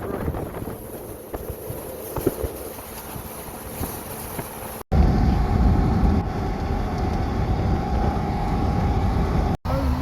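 Wind rumbling on the microphone over a boat's running motor. It cuts off sharply about five seconds in and comes back louder, with a steady hum.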